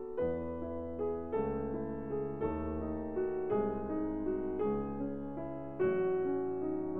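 Background piano music: slow, gentle notes and chords, a new one struck about once a second and left to ring.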